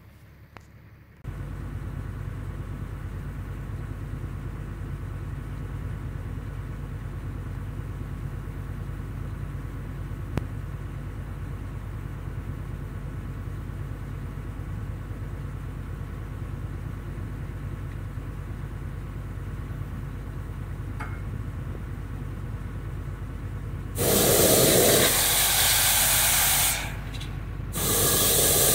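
The service truck's 135 CFM air compressor runs with a steady low drone. Near the end, the sandblaster starts with a loud, even hiss of compressed air and abrasive, cuts off for about a second, then starts again.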